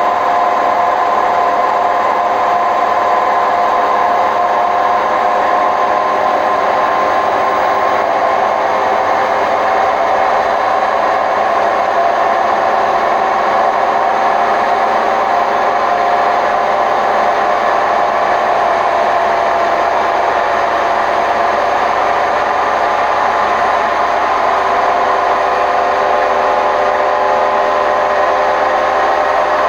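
Hotpoint WMF760 washing machine on its spin cycle, running loudly and steadily with a grinding noise from worn-out drum bearings. Several tones in the noise drift slightly in pitch as the drum speed shifts.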